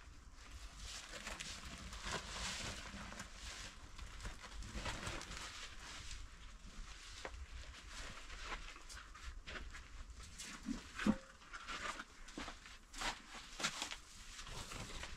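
A large printed floor sheet rustling and crinkling as it is folded and carried, with many small crackles. A brief low call about two-thirds of the way through.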